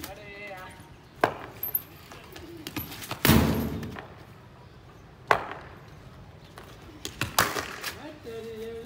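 Sharp, separate knocks of a hard cricket ball being struck by the bat and landing on a concrete pitch, a few seconds apart. About three seconds in, a louder short rush of noise fades out over half a second.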